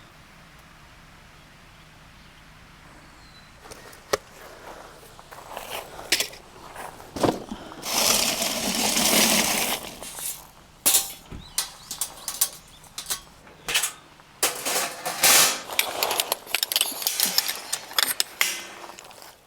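Camping gear being handled during setup: after a few seconds of steady quiet background, a run of sharp clicks and knocks with rustling, the longest rustle a couple of seconds long near the middle.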